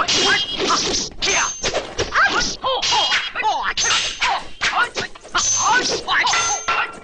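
Kung fu film fight soundtrack: a rapid run of a dozen or so punch and kick impact effects with whooshes, mixed with the fighters' short shouts.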